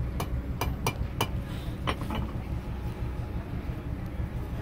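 Light metallic clinks, about seven in the first two seconds at uneven spacing, each with a short ring, from a blacksmith's steel work, over a steady low rumble.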